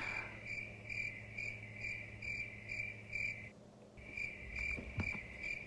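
Steady high-pitched chirping, pulsing about twice a second, that stops for about half a second midway and then resumes.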